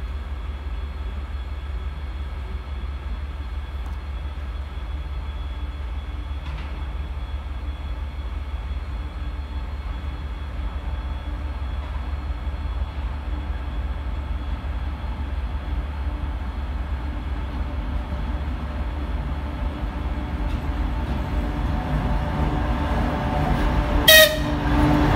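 A 2TE116U diesel locomotive approaching with a freight train: a steady low drone that slowly grows louder as it nears. Near the end it gives one short, loud toot of its horn.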